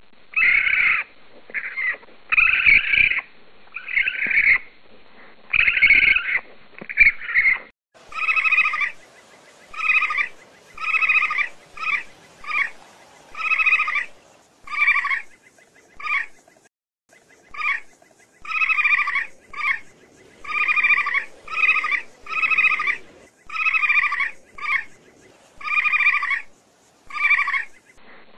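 An animal calling in a series of short calls, about one a second. About eight seconds in it gives way to a clearer, evenly spaced run of two-toned calls.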